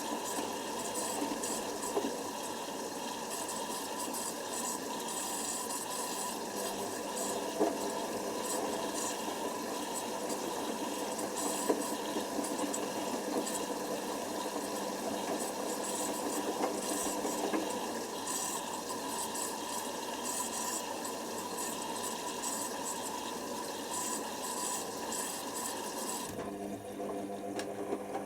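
Hoover Nextra washer dryer running: water sloshing and splashing in the drum over a steady machine hum. About 26 seconds in the splashing stops and a steadier motor hum carries on.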